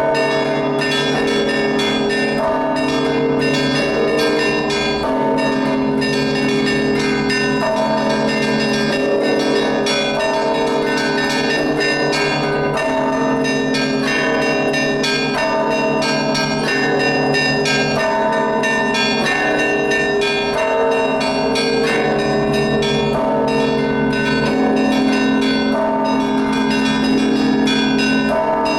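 Russian Orthodox church bells rung by hand in a full peal (trezvon): quick, continuous strikes of the smaller bells over the lasting tones of the larger bells, with no pause.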